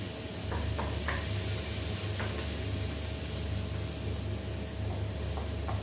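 Chopped garlic and onion sizzling in hot oil in a frying pan as a sauté begins, with a few light taps of a wooden spoon against the plate and pan.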